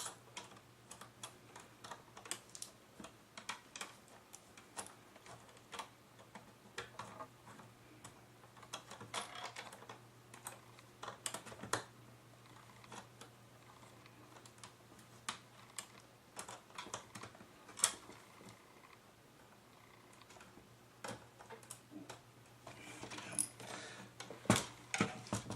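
Irregular small clicks and taps from hands working on a laptop's plastic display assembly, over a faint steady hum, with a rustling stretch near the end.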